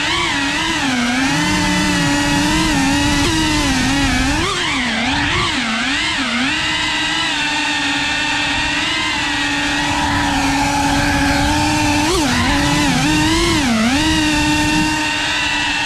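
FPV quadcopter's electric motors and propellers whining. The pitch holds steady, then dips and swoops up and down as the throttle changes, about a third of the way in and again toward the end, heard up close from the drone's onboard camera.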